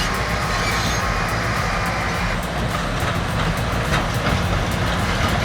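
Large crawler bulldozers' diesel engines running steadily, with a rapid clanking of steel tracks.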